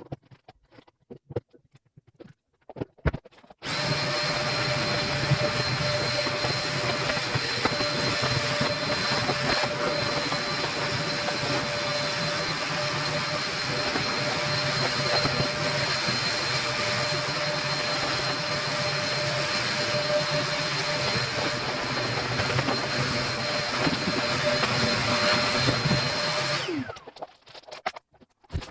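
Vacuum cleaner switched on about four seconds in, running steadily with a constant whine, then switched off near the end, its motor winding down with a falling pitch.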